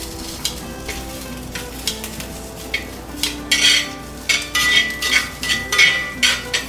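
Zucchini strips sizzling in an oiled pan as metal tongs toss them, with repeated clicks and scrapes of the tongs on the pan. The clatter grows louder and busier in the second half.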